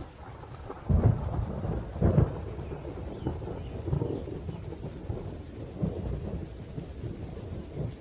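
Thunderstorm: rain falling steadily while thunder rumbles, with two loud peals about a second apart near the start and fainter rolls after.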